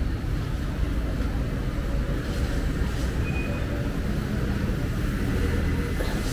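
Street traffic ambience: a steady low rumble of vehicles on the road, with no single event standing out.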